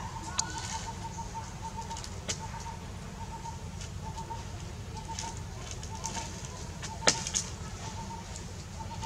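A baby monkey rummaging in cut grass piled on a plastic bag: scattered rustles and a few sharp crackles, the loudest about seven seconds in. Behind it, a chirping call repeats steadily at one pitch.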